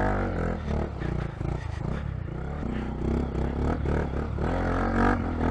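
Honda Monkey 125's single-cylinder four-stroke engine pulling through a deep muddy rut, its note rising and falling with the throttle.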